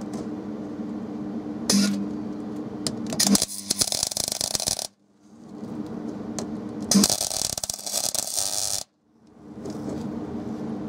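MIG welder tack welding a nut to a thick steel plate on the underside of a car floor: two crackling arc bursts of about a second and a half each, about three and a half seconds in and about seven seconds in, over a steady hum.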